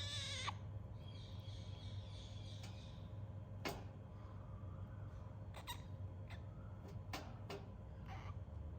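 Cockatoo chick about a month old calling: a short harsh call at the start and a longer hoarse one after it, then several brief sharp squeaks spaced about a second apart, over a low steady hum.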